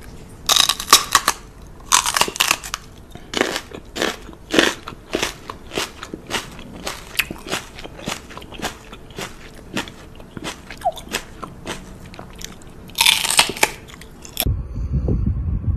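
A dog chewing and crunching on something hard: irregular sharp crunches, one or two a second, with longer bouts of crunching near the start and near the end.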